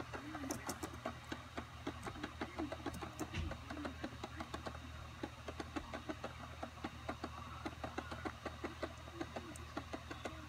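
Laptop optical drive reading the ReactOS live CD while the system boots: rapid, irregular clicking over a low steady hum.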